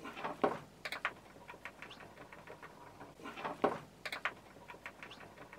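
A screwdriver and hands working the screws and centre panel of a wooden bird box, played fast-forward: a quick, skittering run of small clicks, scrapes and knocks of metal on wood, with two louder knocks, one about half a second in and one past the middle.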